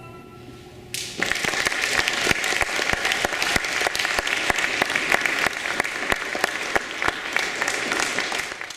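Audience applauding, breaking out about a second in after a brief hush.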